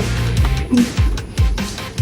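Background music: a rock track with electric guitar and a steady kick-drum beat.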